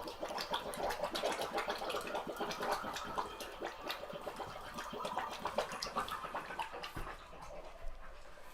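Air and water spitting out of a filling A. O. Smith tank water heater, a dense irregular crackle of sputters: the trapped air is being pushed out as the tank nears full.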